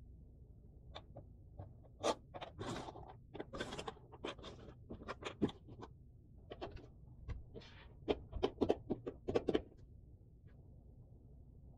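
Cardboard jigsaw puzzle pieces being handled on a table: irregular light clicks and scrapes as pieces are picked up, slid and set down, with a quick run of taps about two-thirds of the way through.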